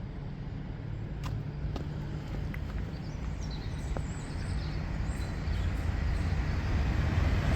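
South Western Railway Class 450 electric multiple unit approaching the crossing: a low rumble that grows steadily louder.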